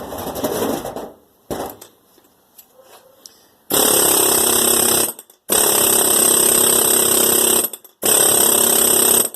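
Pneumatic air hammer firing in three loud bursts of about one and a half to two seconds each, starting about four seconds in, with short pauses between. A shorter noise comes in the first second.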